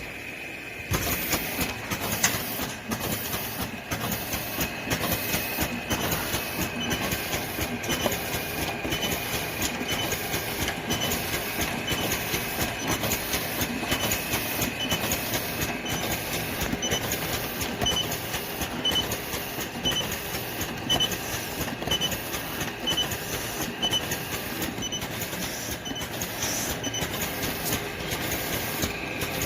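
Automatic mask-pack packaging machine running, with a steady mechanical clatter starting about a second in and a regular stroke repeating about one and a half times a second. Faint short high chirps come about once a second in the later part.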